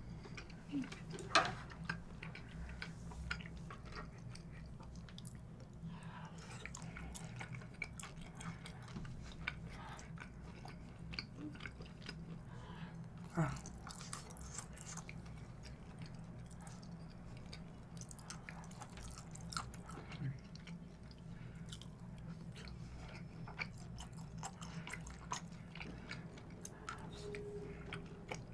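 Close-miked chewing of grilled beef intestines (gopchang and daechang), with soft wet mouth sounds and many small clicks over a steady low hum. Two sharper clicks stand out, about a second in and about halfway through.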